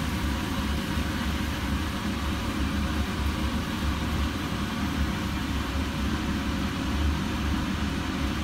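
Steady machine noise from a running kitchen appliance: an even rushing sound with a strong low hum underneath, unchanging throughout.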